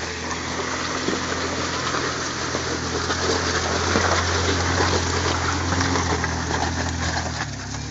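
Off-road vehicle engine running at a steady pitch while a rushing, splashing noise of water builds to its loudest midway and eases off. The engine note changes near the end.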